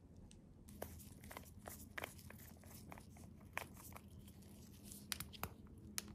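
Scattered light clicks and taps of small plastic nail-art cases and containers being handled in disposable plastic-gloved hands, the sharpest few near the end.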